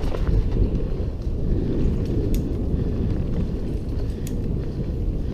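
Mountain bike running fast down a rough dirt trail: a steady rumble of wind on the microphone and trail vibration, with a couple of sharp rattling clicks from the bike.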